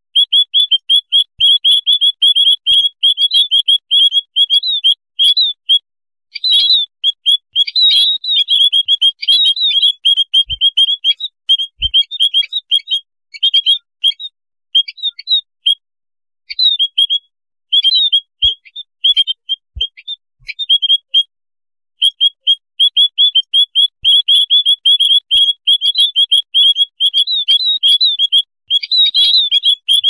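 A flock of white-headed munias (emprit kaji) chattering: rapid runs of short, high chirps, dense at first, sparser through the middle with a brief pause about two-thirds through, then dense again. A colony's noisy calling, used as a lure call to draw in wild munias.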